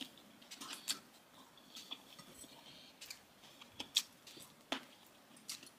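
Quiet eating sounds from a meal taken by hand: a scattered series of small clicks and smacks from chewing fried rice and dried fish.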